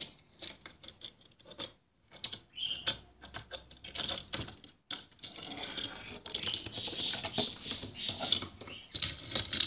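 Small toy train engines pushed by hand along a wooden railway track: rapid, irregular clicking and rattling of the toys against the track.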